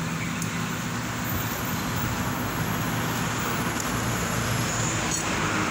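Steady road-traffic noise: a low engine hum under a wash of noise that swells a little near the end, as a vehicle passes.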